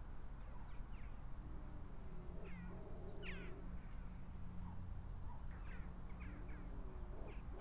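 Animal calls, bird-like: short chirps that fall in pitch, scattered every second or so, with a few longer mewing calls, over a steady low hum.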